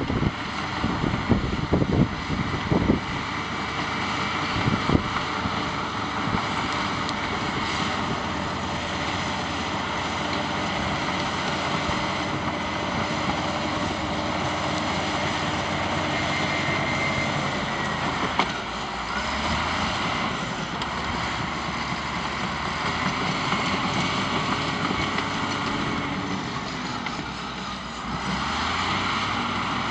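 Caterpillar D6 crawler dozer's diesel engine running steadily while the dozer pushes brush and root balls, with a few sharp knocks in the first three seconds. The engine note shifts a little past halfway and dips briefly near the end.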